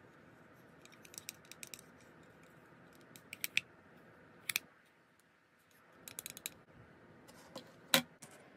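Small hard-plastic clicks and taps from handling a toy plastic thermometer, coming in several short quick clusters, with a single louder knock near the end as a toy piece is set down on the table.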